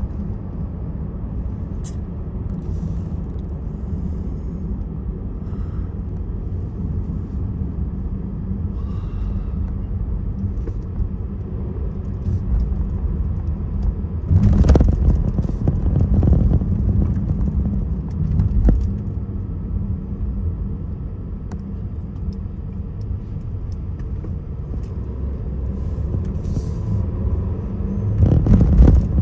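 Steady low road and engine rumble heard inside a moving car, with the noise swelling louder for a couple of seconds about halfway through and again near the end.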